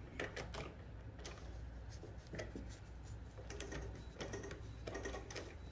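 Vintage Cornely L chainstitch embroidery machine working slowly through thick fuzzy yarn, with faint, irregular clicks and ticks over a low hum. The machine is not running smoothly.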